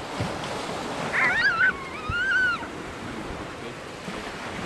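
Sea surf washing with wind noise on the microphone. About a second in comes a high, wavering, squeal-like cry in two parts, lasting about a second and a half.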